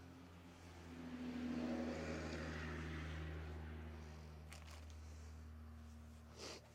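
Air blower drying a freshly washed motorcycle: a steady motor hum and rushing air that swells louder about a second in, then eases back down.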